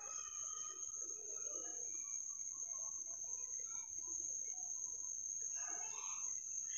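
Faint background: a steady high-pitched whine with a few faint scattered sounds beneath it.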